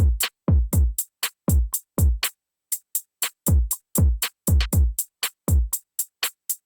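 Sparse drum machine beat: deep kick drums that drop in pitch as they decay, mixed with short, crisp hi-hat hits. Each hit is dry and followed by silence.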